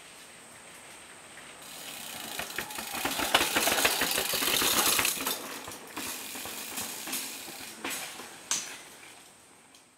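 Mountain bike coming down stone steps: tyres thudding and scuffing over the stone with the chain and drivetrain rattling and clicking. It builds up, is loudest about three to five seconds in, then fades, with one sharp knock near the end.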